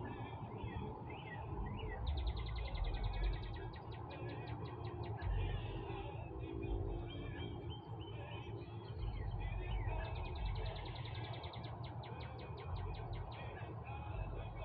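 Songbirds singing outdoors, with scattered chirps and a rapid trill heard twice, each lasting a few seconds, over a low rumble.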